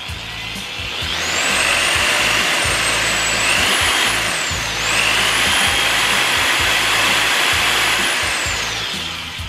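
Bosch PSB 650 RE corded hammer drill running with no load, its motor whine speeding up about a second in, dipping briefly near the middle, then speeding up again and slowing down near the end as the variable-speed trigger is worked.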